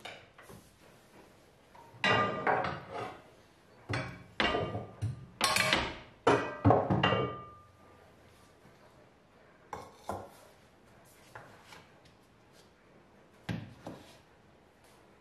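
Cookware clattering in a kitchen: a few seconds of rapid metal knocks and clanks, some ringing briefly. Then a few light knocks, and a thunk near the end as a frying pan is set down on an electric hob.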